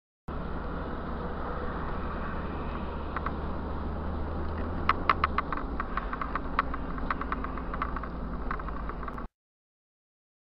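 Car's engine and road noise heard from inside the cabin, steady and low. About halfway through, a run of sharp, irregular clicks joins in and goes on for about four seconds.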